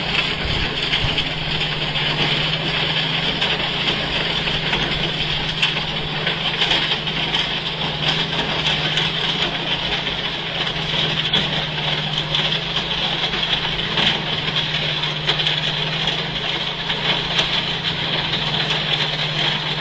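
Diesel-powered rail track maintenance machine working the ballast: a steady engine hum under a constant hiss with scattered rattling ticks.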